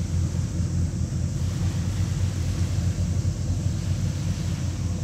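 Engine of a small Japan Coast Guard patrol boat running steadily as it cruises past, a low, even drone.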